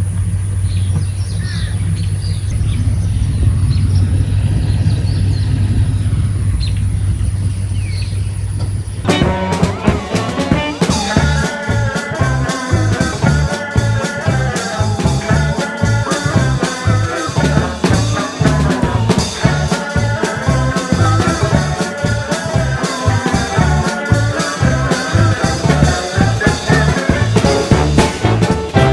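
A steady low rumble with faint short chirps above it, then, about nine seconds in, upbeat swing-style music with brass and drums starts and carries on.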